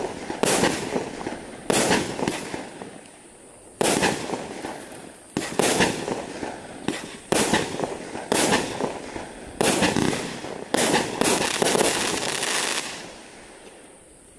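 Consumer firework barrage firing: about a dozen sharp bangs of shells bursting overhead, roughly a second apart and irregular, each trailing off before the next. The shots stop shortly before the end and the sound dies away.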